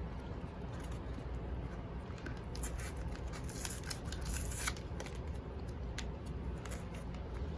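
Scissors cutting open the plastic and cardboard of a Pokémon card blister pack: a run of sharp clicks and crackles from about two and a half seconds in, over a steady low rumble.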